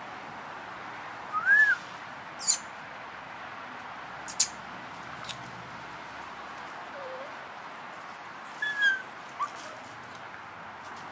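Siberian husky puppies yipping in a few short, high, arched calls while they play, with some sharp clicks in between, over a steady background hiss.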